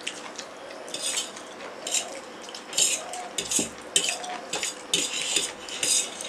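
Fork scraping and clinking against stainless steel plates in short, irregular strokes about once a second while noodles are eaten.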